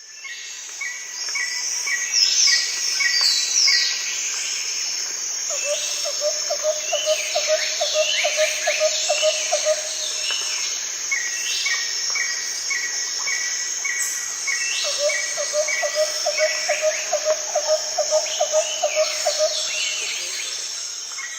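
Tropical forest ambience: a steady high insect drone under bird calls, with runs of short repeated chirps and quick falling whistled notes. Twice a lower pulsing trill runs for about four seconds.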